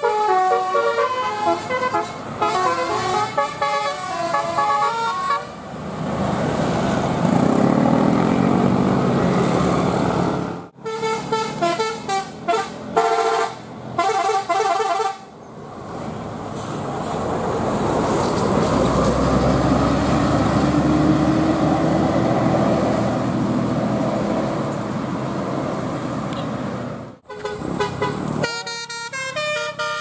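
Tour buses' 'telolet basuri' multi-tone horns playing short melodic tunes, several notes in quick succession: at the start, again in the middle, and just before the end. Between the tunes the buses' diesel engines run loudly as they pass, the engine note rising slowly.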